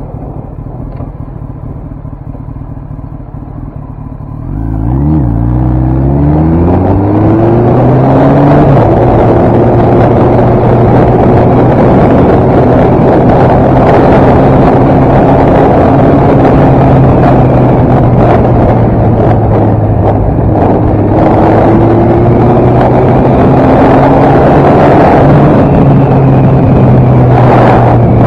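Kawasaki ZX-10R's inline-four engine running quietly at low revs, then about four seconds in pulling away hard. Its pitch climbs through several quick upshifts before it settles into a steady cruise, with wind rushing over the microphone.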